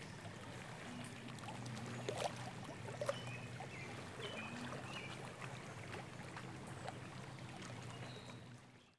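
Lake water lapping and sloshing gently against a small boat's hull, with a low steady hum underneath and a few short high chirps.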